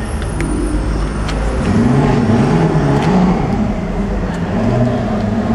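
A car engine running, a steady low rumble whose pitch wavers slightly and grows a little stronger partway through, with voices in the background.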